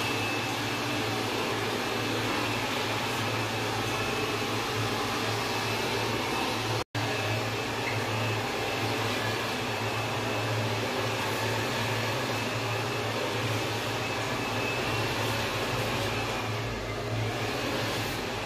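Hair dryer blowing steadily, a constant whooshing hiss over a low motor hum, with a momentary break about seven seconds in.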